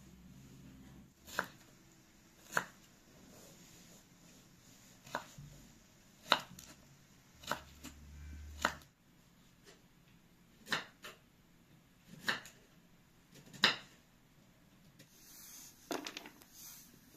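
Kitchen knife cutting carrots into sticks on a wooden log-slice cutting board: single sharp knocks of the blade meeting the wood, about nine in all, each a second or two apart. Near the end there is a soft clatter as the carrot sticks are gathered onto a plate.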